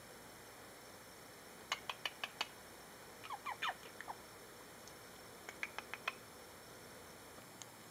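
Sharp finger clicks in two quick runs of four, with a few short squeaks falling in pitch between them and a single click near the end.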